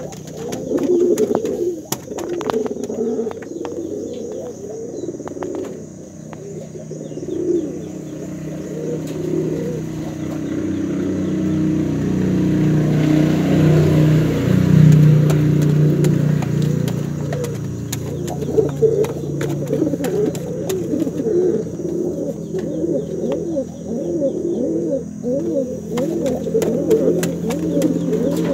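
Male domestic pigeon cooing over and over, calling for a hen. It is a run of low, wavering coos that swells louder about halfway through, with a few sharp clicks in the first seconds.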